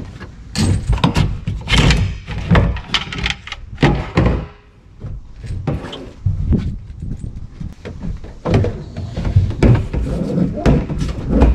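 Irregular knocks, thuds and clatter of a garden hose being handled and pushed against a plastic water tank and other gear in a truck bed under a canopy.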